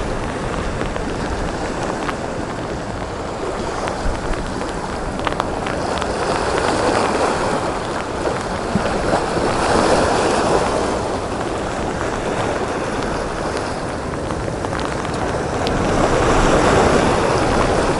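Storm surf breaking and washing over a rocky shore, with wind noise; the surf swells to louder surges about halfway through and again near the end.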